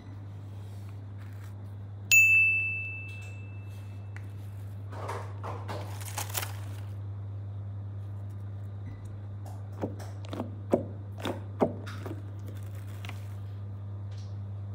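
A single bright bell-like ding about two seconds in, ringing on and fading over about two seconds. Later come a rustle and a handful of light clicks and taps of small plastic toys being handled, over a steady low hum.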